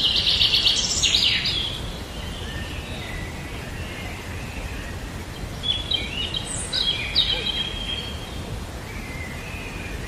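Birds singing and chirping: a loud, rapid trill in the first second and a half, then scattered high chirps and whistles, busiest about six to seven and a half seconds in, over a steady background noise.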